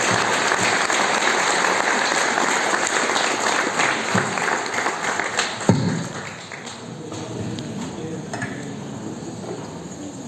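Audience applauding, dying away about six seconds in with a single thump, after which quieter voices talk.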